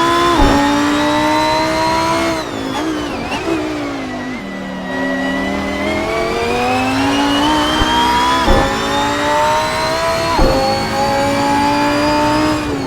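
Lamborghini Huracán Performante's naturally aspirated V10, heard onboard under hard acceleration: its pitch climbs steadily, with sharp drops at quick upshifts right at the start, about eight and a half seconds in and about ten and a half seconds in. Around two and a half seconds in it comes off the throttle and blips down through the gears, then pulls hard again from about five seconds.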